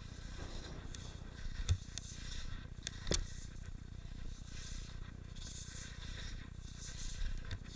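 Skis scraping and carving through mogul snow, with the hiss swelling and fading turn by turn over a steady low rumble. A few sharp knocks stand out, the loudest about three seconds in.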